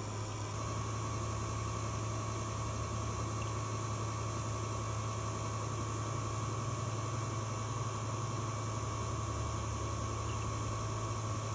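Refco 1.35 CFM vacuum pump running with a steady low hum and hiss while it pulls a deep vacuum on a new air-conditioning system.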